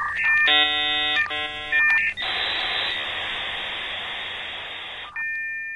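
Dial-up modem handshake: steady tones, then two short bursts of many tones at once, then about three seconds of hissing noise as the modems train the line, and two steady tones return near the end.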